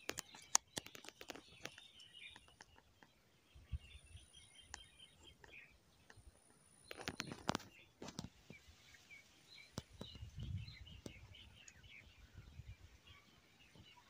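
Wild birds chirping and twittering: many short, faint chirps throughout. Scattered sharp clicks and crackles run under them, with a louder crackling rustle about seven seconds in.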